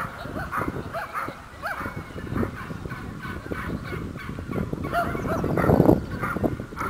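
A dog whining and yipping over and over in short rising-and-falling calls, with a louder low rumble swelling near the end.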